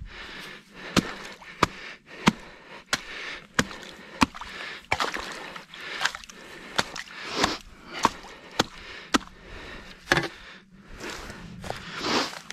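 Shovel chopping into a wet, muddy creek bank, digging out a trap bed: sharp blade strikes about three every two seconds, with wet squelching and sloshing of mud and water between them.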